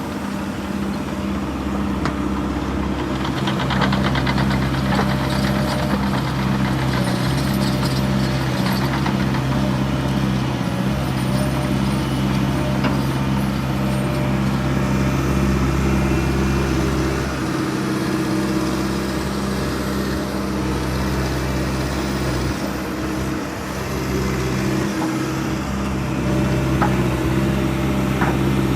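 Case CX240B tracked excavator's Isuzu diesel engine running steadily, with a stretch of rattling between about three and nine seconds in.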